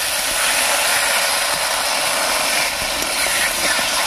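Ground spice paste frying in hot oil in a pan, with water just added: a steady, dense sizzle, with a metal spatula stirring and scraping the pan.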